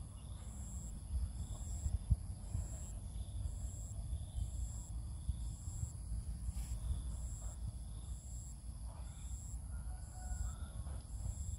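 Insects chirping: a high-pitched chirp repeating about once a second over a steady, even higher whine, with a low rumble underneath.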